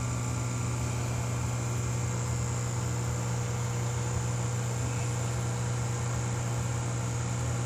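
Steady hum and whir of running aquarium equipment, filter pumps and air pumps, with a constant deep hum tone under a light hiss.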